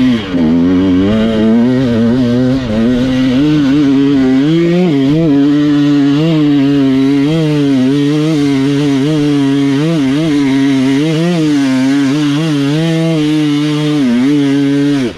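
Enduro dirt bike engine running under way, the revs rising and falling continually with the throttle.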